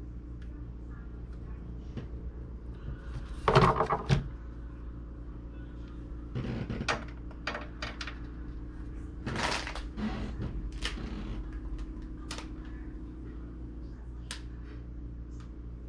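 Hands handling objects: scattered clicks and knocks, with three louder rustling or scraping bursts, over a steady low hum.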